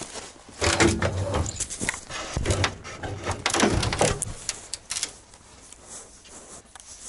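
Metal clunks and clatter as the snow-covered front luggage lid of a ZAZ-968 Zaporozhets is opened and the parts inside are handled. The knocking starts about half a second in, is thickest through the first few seconds and quietens near the end.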